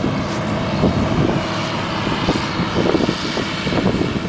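Combine harvester running steadily at harvest.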